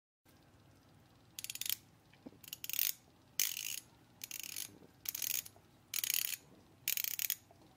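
The rotating dive bezel of a Michael Kors Everest MK9055 chronograph being turned by hand in short pushes. Each push gives a quick run of ratcheting clicks, about seven runs in all.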